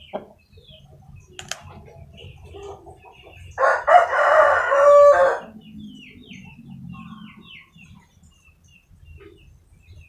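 A rooster crows once, a single call about two seconds long, a few seconds in, with faint high chirping around it.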